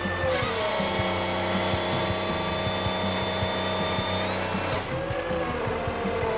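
A motor running steadily at high speed for about four seconds, with a thin high whine that rises slightly near the end. Just before and after it, a lower engine sound slides up and down in pitch.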